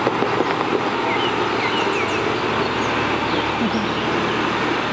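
Heavy Mercedes-Benz dump truck running steadily as it drives along a gravel road, a constant engine and tyre noise. Birds chirp faintly a few times.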